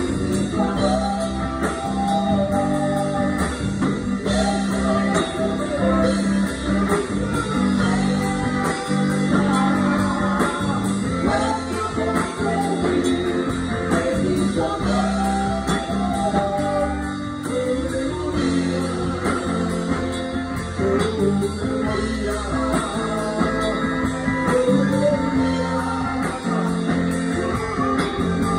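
Live Spanish-language gospel band playing a song: electric guitar and bass guitar, with a voice singing the melody.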